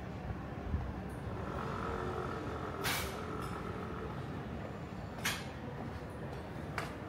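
Street ambience: a steady low rumble of passing traffic, with three short, sharp hissing bursts about three, five and nearly seven seconds in.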